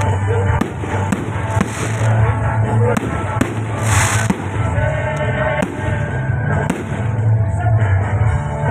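Fireworks going off: repeated sharp bangs and crackles, with a hissing burst about four seconds in, over loud music with a heavy bass.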